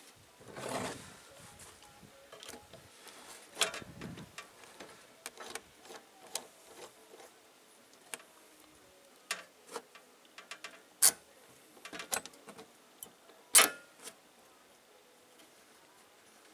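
A short scrape of sheet metal being slid across a wooden bench. It is followed by scattered sharp metallic clicks and knocks as a clamp is fitted and tightened to hold the sheet on a small bench-top sheet-metal bending brake. The two sharpest clicks come in the second half.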